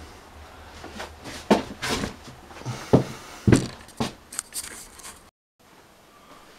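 A series of irregular knocks and rustles from someone moving about and handling the camera in a small wooden room, then a brief cut-out and faint room tone.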